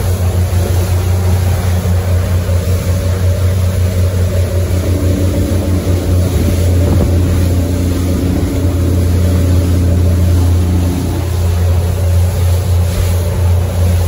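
Twin outboard engines of a Hydra-Sports 28 boat running steadily under way, a strong low drone over a constant rush of wind and water; a second, higher hum joins in the middle for several seconds.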